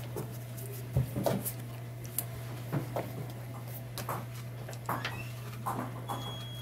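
Scattered light clicks and knocks of hands handling an ostrich egg, elastic band and craft tools on a table, about one every second, over a steady low hum.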